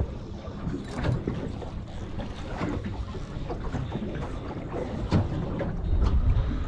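Wind buffeting the microphone and water lapping around a small aluminium boat, with scattered light knocks; a stronger low gust comes about six seconds in.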